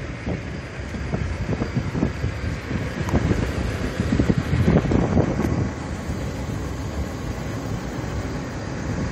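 Wind buffeting the microphone: a loud, gusty low rumble that swells about four seconds in and eases off about two seconds later.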